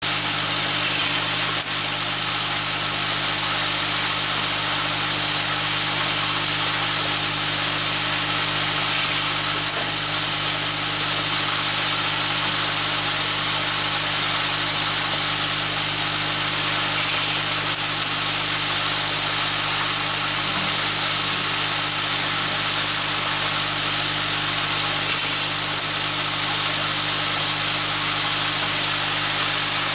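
MK1040 centerless grinder running steadily, a constant machine hum under an even grinding hiss, with a faint tick about every eight seconds.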